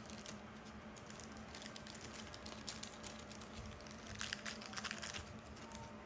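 Faint handling noises: light rustling and small clicks from hands setting down a screwdriver and reaching for a small packet, busier in the second half, over a low steady hum.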